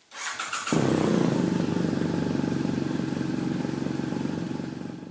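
BMW R1200GSA motorcycle engine being started: a brief starter crank, then the engine catches under a second in and runs steadily.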